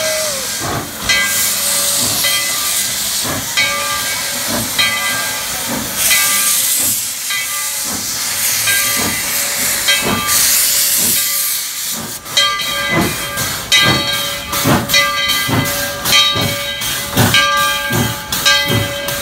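Baldwin steam locomotive venting a loud, steady hiss of steam, with repeated beats that come faster from about twelve seconds in as the train starts to move off.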